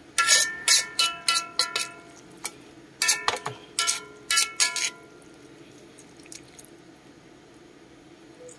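A metal ladle clanking and scraping against an aluminium wok while stir-frying ensabi greens, each strike ringing briefly. The clanks come in two quick runs and stop about five seconds in.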